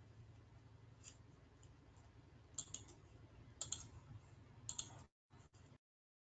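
Faint computer mouse clicks, a few spaced about a second apart, over a low electrical hum; the audio cuts off abruptly about six seconds in.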